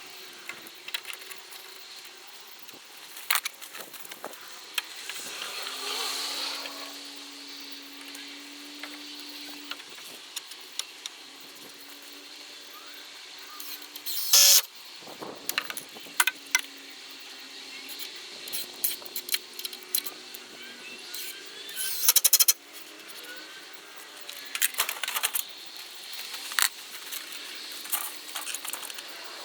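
Clicks, knocks and light rattles of hands-on construction work with tools and timber, with two short, louder noisy bursts about halfway through and again about three quarters of the way in.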